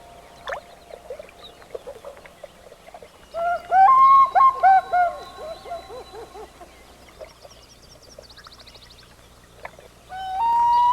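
Common loons calling over the water. About three and a half seconds in comes a loud wavering tremolo call with quick pitch wobbles, lasting a couple of seconds. Near the end a long wail note rises and holds.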